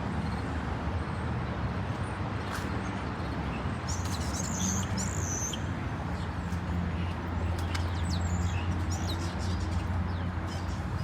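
Birds chirping in short bursts, about four seconds in and again around eight seconds, over a steady low rumble of distant road traffic.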